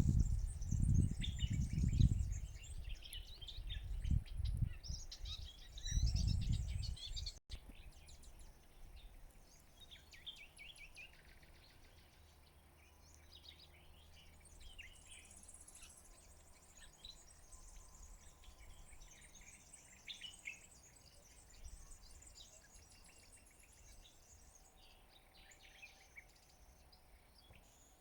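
Small birds chirping and singing in short, varied phrases throughout. For the first seven seconds or so, a loud gusty low rumble, like wind on the microphone, lies under the birdsong; it cuts off suddenly, and the birdsong carries on over a quiet background.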